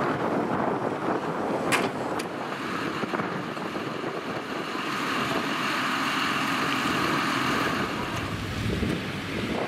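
Tractor engine running steadily, with wind on the microphone and two short clicks about two seconds in.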